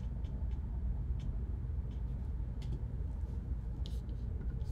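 Steady low background hum with a few faint scattered clicks.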